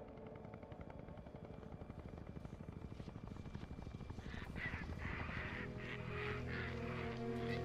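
A flock of flying creatures calling, a rapid run of repeated calls starting about four seconds in, over low sustained film score that builds toward the end. The first few seconds hold only a quiet low pulsing.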